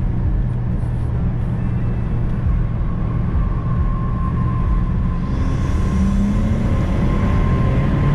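2008 BMW 335i's N54 twin-turbo straight-six accelerating hard through third gear, heard from inside the cabin, the revs climbing steadily toward about 6,000 rpm.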